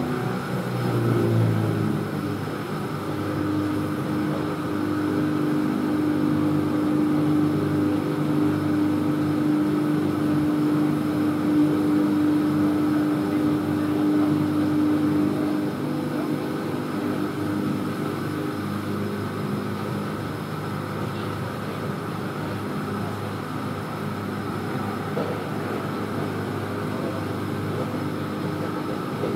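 Electric train running along an elevated track, heard from inside a car with open windows: a steady rumble of wheels on rails with a steady motor whine that fades about halfway through.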